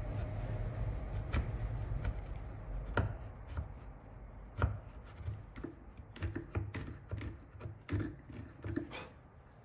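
Chisel paring the side of a timber dovetail tail to ease a tight fit: irregular sharp cuts and knocks on the wood, the loudest about four and a half seconds in.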